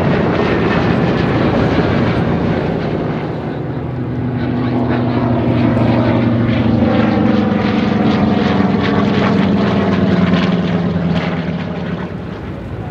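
Radial piston engines of WWII naval warplanes flying past in a steady propeller drone. From about a third of the way in, one plane's engine tone falls gently in pitch as it goes by.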